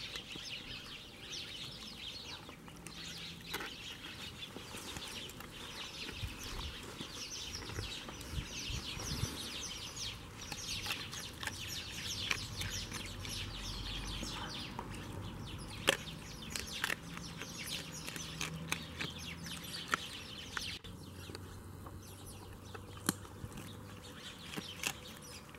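Large dog chewing and crunching raw chicken pieces and bones, a steady crackle of small clicks with sharper bone cracks, the loudest about 16 s and 23 s in.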